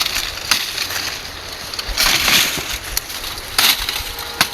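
Dry maize plants rustling and crackling, with a few sharp snaps, as cobs are broken off and handled during the harvest.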